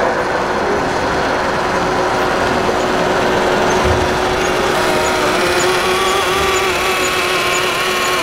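Radio-controlled scale model truck driving slowly: a steady engine-like drone with a constant hum under it.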